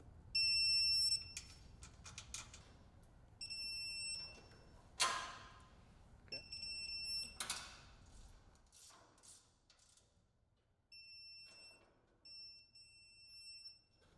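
Digital torque wrench beeping as each screw reaches its set torque: about five high, steady beeps a few seconds apart, the later ones fainter, with a few clicks and a short rush of noise between them.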